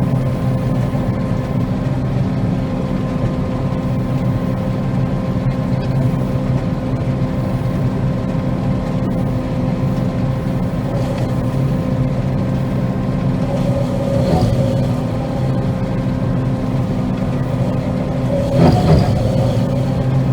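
A combine harvester running steadily while cutting soybeans, a constant engine and machinery drone. There is a short louder rattle about fourteen seconds in and a stronger one near the end.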